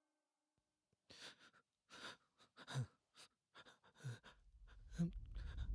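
Near silence broken by a few faint, short sounds about a second apart, then music begins to swell in right at the end.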